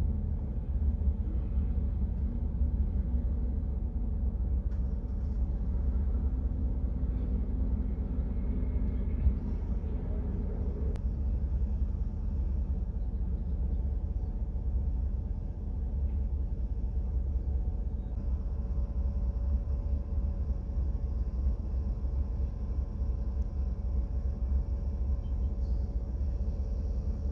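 Steady low rumble of an idling vehicle engine, heard from inside the cab.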